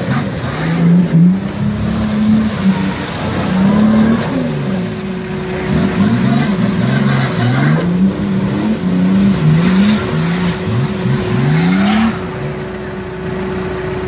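V8-swapped Nissan Patrol Y60's engine revving hard in the mud, its pitch climbing and dropping over and over. A steady high whine joins about four seconds in.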